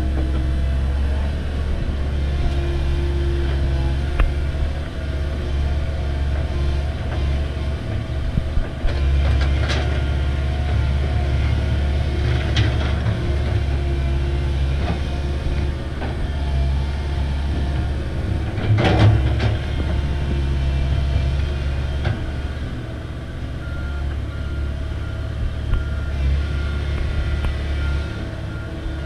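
Komatsu hydraulic excavator's diesel engine running steadily under digging load, with occasional sharp knocks and scrapes of the bucket on soil and rock, the loudest about two-thirds of the way through.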